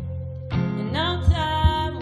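Live music from a small band: guitar playing under a held melodic line that slides between notes, over low sustained tones, with a few soft mallet strikes on percussion.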